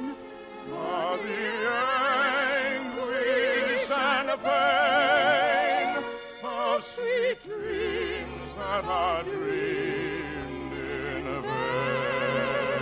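Operetta singing over orchestral accompaniment: a soprano voice with strong vibrato holding long notes, with a brief break about seven seconds in before the next phrase.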